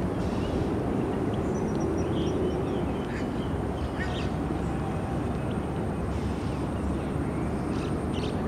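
Steady low rumble of distant traffic, with a few short, faint high chirps of small birds over it.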